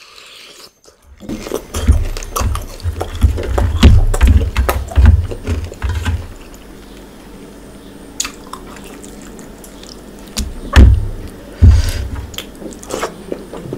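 Close-miked wet eating sounds: chewing and sucking on a curried fish head, with many wet clicks and low thumps. After a quieter stretch in the middle, fingers squelch through thick curry gravy, and a few louder thumps come near the end.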